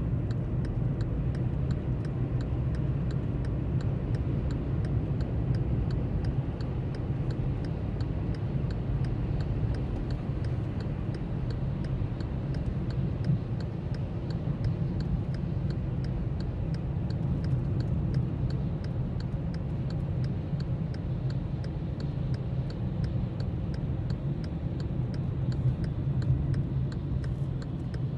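Car driving, heard from inside the cabin: a steady low engine and road rumble, with a light regular tick about twice a second.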